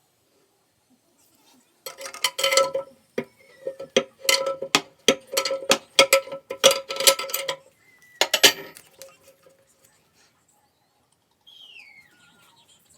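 Rapid runs of sharp clinks and taps from hard objects knocking together, each with a short ringing tone. They come in bursts, with a few brief falling squeaks between them.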